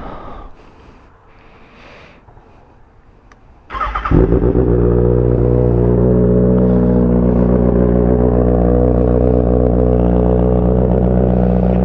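Kawasaki ZX-6R's 636 cc inline-four engine starting about four seconds in, with a brief crank before it catches, then running at a steady idle.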